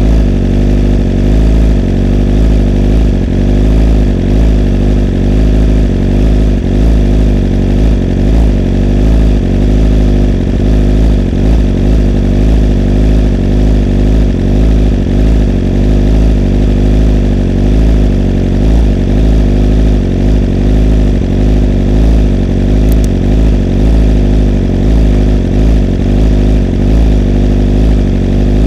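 BMW S1000RR's inline-four engine idling steadily through an Akrapovič GP Shorty full-titanium exhaust: an even, low exhaust note with no throttle blips.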